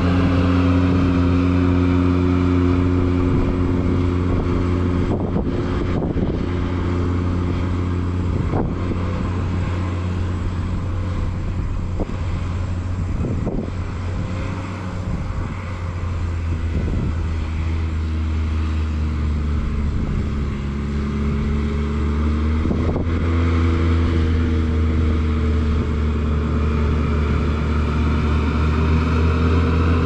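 Ventrac 4500Z compact tractor's engine running steadily while driving its KX480 front snowblower. The engine note sags a little around the middle and picks back up near the end, with a few faint knocks.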